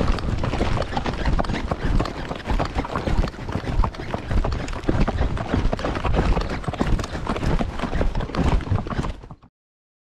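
A horse's hoofbeats on a dirt road, a dense run of irregular thuds under the rider, cutting off abruptly near the end.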